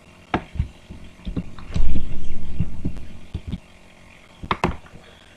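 Keyboard clicks and low thumps against the desk, picked up close to the microphone. There are a few sharp clicks, a heavier low thump that rumbles for about a second around two seconds in, then two more clicks near the end.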